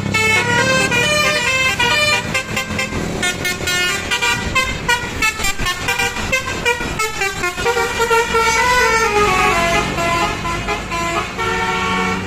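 Telolet bus horn, a multi-tone electric horn on an Indonesian bus, playing a quick tune of short stepping notes, with a falling run of notes about eight seconds in.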